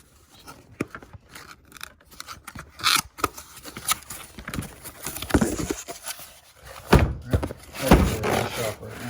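Irregular knocks, clunks and scrapes of tools and a hard case being handled, getting busier and louder in the second half, with the strongest clunks near the end.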